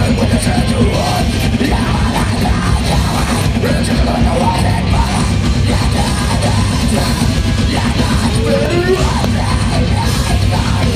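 Live metalcore band playing loud, dense heavy music: distorted guitars and drums with yelled vocals.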